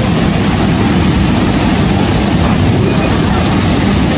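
Waterfall pouring into a rocky plunge pool: a loud, steady rush of falling water with no let-up.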